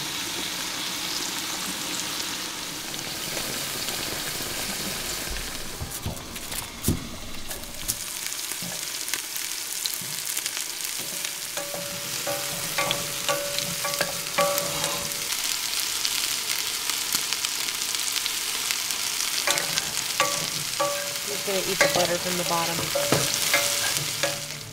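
Food sizzling in a frying pan while it is stirred, a utensil clicking and scraping against the pan. A few short pitched tones come in the second half.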